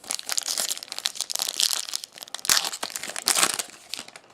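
Foil trading-card pack wrapper crinkling and being torn open, with louder crackling flurries in the middle and near the end.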